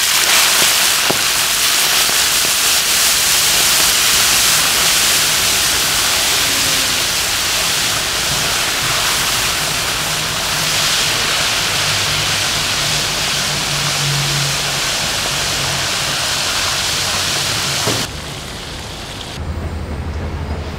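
Mantis shrimp deep-frying in a wire basket in a wok of hot oil: loud, steady sizzling, which drops away suddenly about 18 seconds in.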